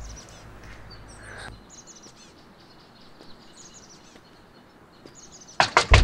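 Faint bird chirps over a quiet background, then near the end a sudden loud run of rapid knocks on a door.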